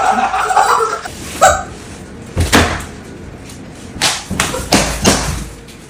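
A series of sharp smacks, about six or seven irregularly spaced blows over four seconds, after voices fade in the first second.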